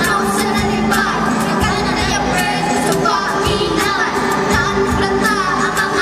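Children singing into microphones over amplified pop music with a steady beat.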